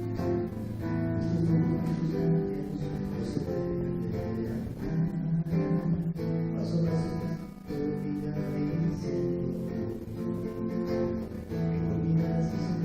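Live music at a sound check: acoustic guitar strummed with other instruments, sustained chords with a brief dip about two thirds of the way through.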